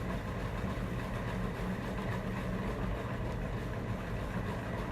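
Salad spinner being spun to dry rinsed spinach, a steady mechanical spinning sound.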